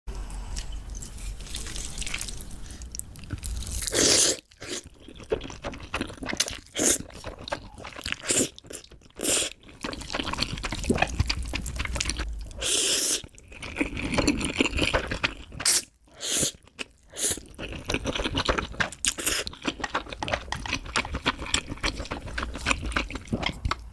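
Close-miked eating sounds of spicy chicken noodles, chicken thighs and enoki mushrooms: irregular chewing, crunching and wet mouth clicks. Louder noisy bursts come about four and thirteen seconds in.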